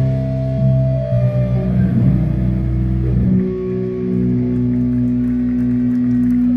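Doom metal band's heavy, distorted guitars and bass ringing out as a song ends. About three seconds in, the low chord gives way to a single steady, held guitar tone.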